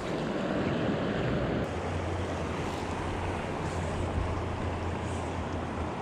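Creek water rushing steadily, with a low wind rumble on the microphone from about two seconds in until near the end.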